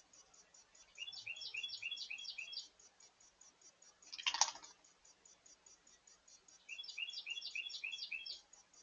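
A songbird sings two phrases of quick, repeated falling notes, a second or so in and again near the end, over a steady fast high-pitched ticking. Midway, a short, loud, harsh burst of noise cuts in.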